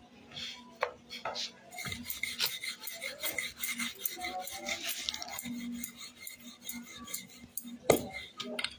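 Hands rubbing and scraping at something, with many light clicks and clinks scattered through and a sharper click near the end.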